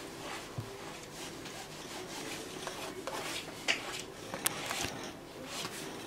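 Steel palette knife pressing and spreading thick oil paint across a canvas: soft scraping and rubbing, with a few light clicks.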